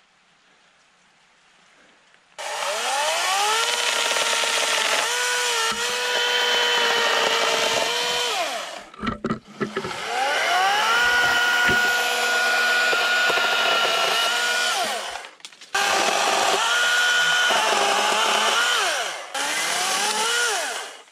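A Greenworks battery-powered electric chainsaw starts with a rising whine about two seconds in, then cuts through branches, its pitch dipping under load. It stops and spins up again about three times.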